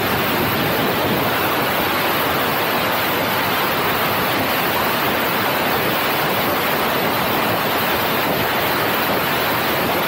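Steady rushing noise of a passenger train running at speed, heard from outside its coaches: wind over the microphone mixed with wheel and rail noise, with no distinct clicks or horn.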